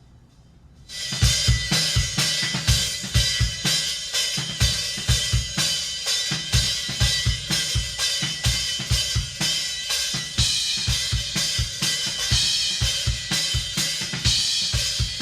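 Recorded drum kit playing a fast rock/metal beat: quick bass-drum hits, snare and constant cymbals. It kicks in suddenly about a second in.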